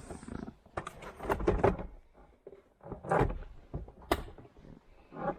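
Vehicle interior plastic trim being handled and fitted back into place: a scattered series of clicks, knocks and rustles.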